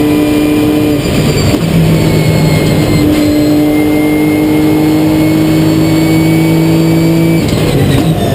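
Nissan GT-R GT3 race car's twin-turbo V6 engine at racing speed, heard from inside the cockpit. The note breaks up about a second in, then runs in a long pull whose pitch slowly rises, and breaks up again near the end.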